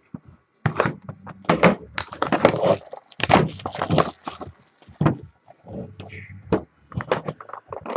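Shrink-wrap plastic being torn and crumpled off a sealed trading-card box, a run of irregular crackles and rustles with short pauses.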